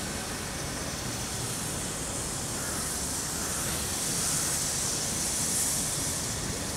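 Steam locomotive C58 239 moving slowly, a steady hiss of steam over a low rumble, the hiss growing louder about four seconds in.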